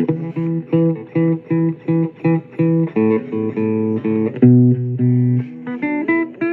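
Instrumental break in a blues song: a repeating plucked guitar riff of short notes, about three a second, with higher notes added near the end.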